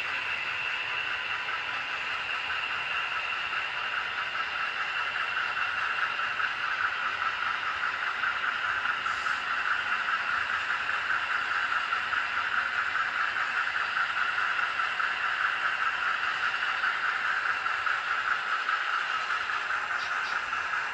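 HO scale model coal train rolling past on its track: a steady whirring hiss of metal wheels on the rails that grows a little louder about six seconds in.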